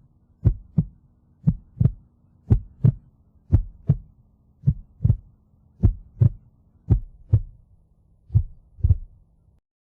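Heartbeat sound effect: paired lub-dub thumps about once a second over a faint low hum, spacing out a little near the end and stopping shortly before it.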